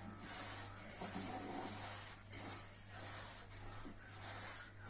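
Hands mixing and pressing crushed biscuit crumbs with melted butter in a bowl: soft rubbing swishes about once a second, over a steady low electrical hum.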